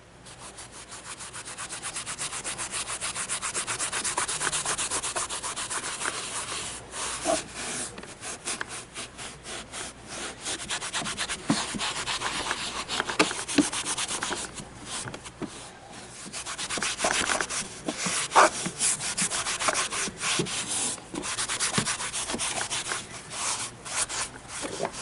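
A wet melamine-foam magic eraser scrubbed quickly back and forth over hard plastic trim, in rapid scratchy strokes with a few short pauses.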